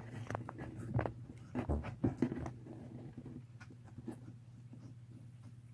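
Cat gnawing on a bone: irregular crunching and clicking of teeth on bone, busiest in the first couple of seconds and then sparse.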